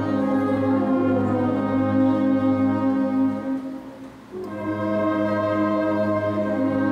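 A large brass band of trombones and French horns, with saxophones, playing a slow hymn in long sustained chords. The sound drops away for a short breath between phrases about halfway through, then the next chord comes in.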